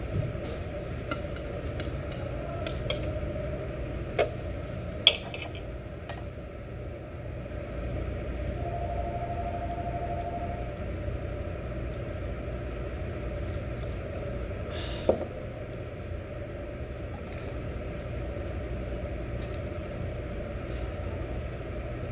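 Steady low hum and hiss at a tabletop yakiniku grill, meat and shrimp sizzling on the grate, with a few sharp clicks of utensils. The loudest clicks come about five seconds in and about fifteen seconds in, and a short faint tone sounds around nine to ten seconds in.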